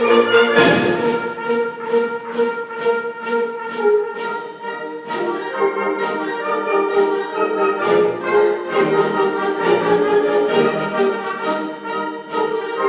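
Orchestral music led by brass, with a cymbal crash about half a second in followed by a steady beat of percussion strokes under held brass chords.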